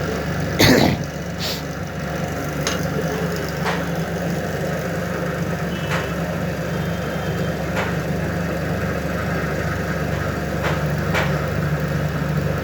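A steady, low mechanical hum from an engine or motor running without a break. A loud knock comes about a second in, and a few light clicks follow later.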